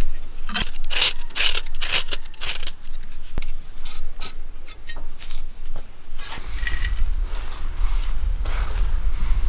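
Knife blade scraping and shaving a block of jaggery onto a terracotta plate, in repeated rasping strokes about two a second. About six seconds in the strokes stop and a steady low rumble with a soft hiss takes over.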